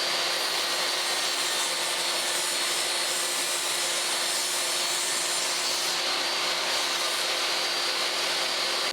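Power tool running steadily while cutting a slot about 3/8 inch deep into a wooden cylinder, a sanding spindle being made.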